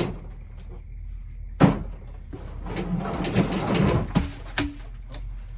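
Firewood logs being pulled off a truck bed: a knock at the start, a louder thud about a second and a half in, a second or two of scraping as a log drags along, then two sharper knocks.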